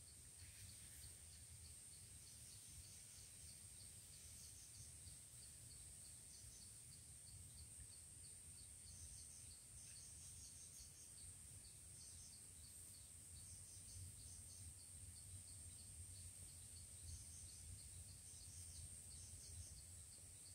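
Faint outdoor insect chorus: a steady high-pitched drone with a fast, regular ticking and short bursts of chirps coming and going, over a low rumble.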